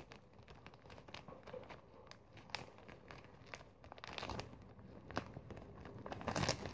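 Plastic bag crinkling and rustling as it is handled, with scattered small clicks. The rustling is louder about four seconds in and again near the end.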